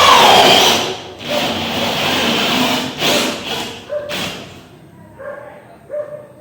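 Electric sander's motor whining steadily, then winding down about half a second in, followed by scattered knocks and handling sounds.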